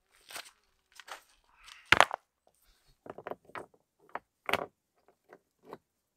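Scattered short knocks, scrapes and crunches of footsteps in dry undergrowth and of stones being handled and set on a dry-stone wall. The sharpest knock comes about two seconds in and another about four and a half seconds in, with quiet gaps between them.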